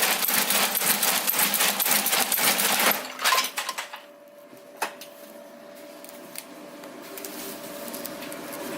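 Broom-sewing machine stitching a straw broom: rapid, dense clattering for about three seconds that then stops. A faint steady hum with an occasional click follows.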